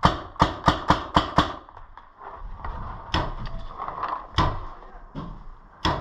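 Paintball marker firing a quick string of about six shots in the first second and a half, then scattered single shots and pops a second or so apart.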